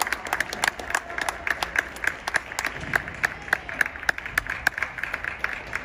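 Small audience clapping: many separate hand claps, several a second, that can be told apart.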